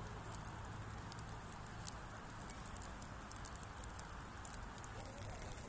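Steady low rumble of a distant jet aircraft, with many light ticks of raindrops pattering throughout.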